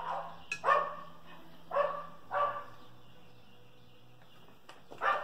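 A dog barking, four short barks spaced unevenly.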